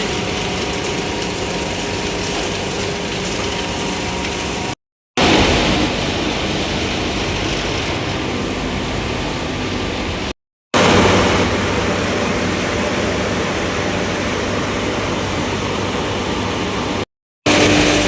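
Coal-fired boiler plant machinery running steadily: a constant hum of motors under a loud rushing roar. The sound drops out briefly three times, at about 5, 10 and 17 seconds.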